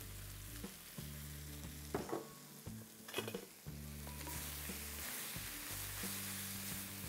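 Chopped spinach sizzling in hot ghee in a stainless steel wok, stirred and tossed with two wooden spatulas. There are a couple of louder knocks of the spatulas against the pan, about two and three seconds in.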